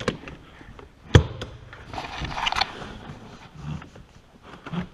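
Handling noises inside a car: one sharp knock about a second in, a few lighter clicks around it, and a short rustle near the middle.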